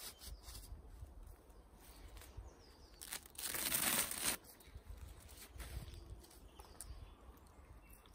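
Hands rustling hessian and raffia strips over dry leaf litter, with one louder rasping tear lasting just over a second about three seconds in, as a long strand of hessian is pulled and ripped loose.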